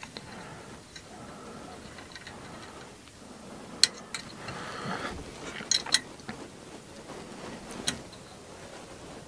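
Scattered sharp clicks and taps of small metal parts and hand tools being handled during 3D printer assembly, with a brief scrape about four and a half seconds in.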